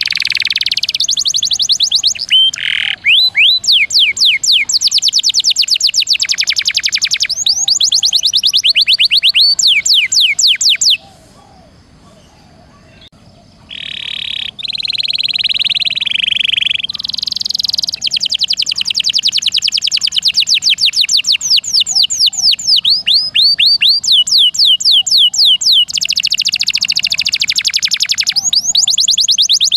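Domestic canary singing in fast rolling trills of repeated high sweeping notes, with a pause of about three seconds midway.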